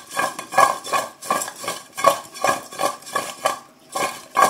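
Raw potato wedges tumbling and clattering against the sides of a bowl as it is shaken by hand, about two to three shakes a second with a brief lull near the end, tossing the wedges to coat them in salt and paprika.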